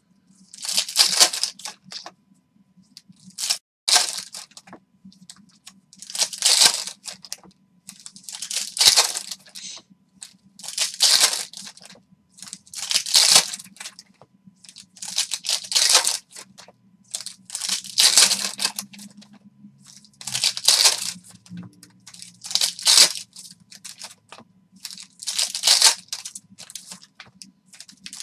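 Foil wrappers of Panini Prizm basketball retail card packs being torn open one after another, a sharp tearing about every two to three seconds, about eleven times.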